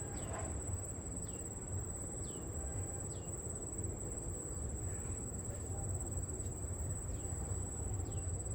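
A steady, high-pitched insect trill, with a short falling chirp repeating about once a second, over a low steady rumble.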